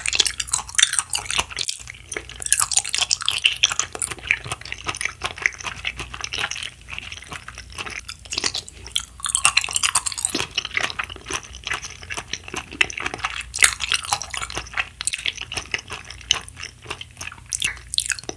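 Close-miked chewing of a chewy peach-flavoured jelly candy: a dense run of wet, sticky mouth clicks and crackles.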